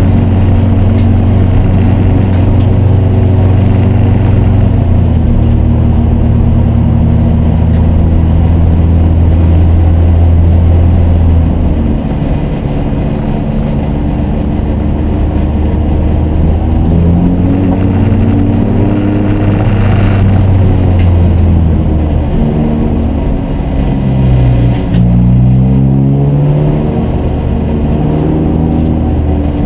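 Race car engine running at steady revs for the first ten seconds or so. After that its pitch rises and falls several times as the throttle opens and closes and the gears change.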